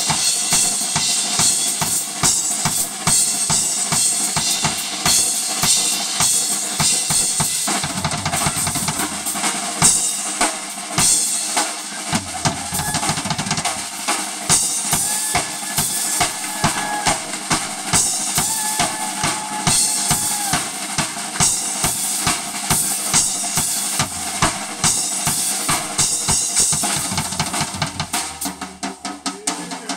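Drum kit solo, played live: a fast, steady stream of strokes on the snare, bass drum and cymbals, with a few brief held notes from another instrument partway through. The hits thin out near the end.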